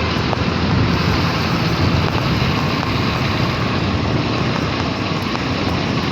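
Steady rush of wind buffeting the microphone while riding, over continuous road noise.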